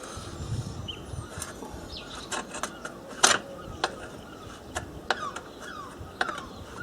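Scattered light clicks and knocks of metal parts and tools being handled on a workbench, with one sharper knock about three seconds in. Birds chirp faintly in the background.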